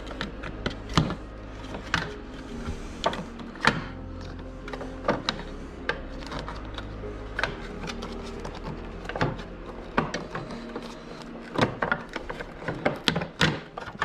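Scattered, irregular clicks and knocks of hand work on the trolling motor mount's metal parts, over a steady low hum.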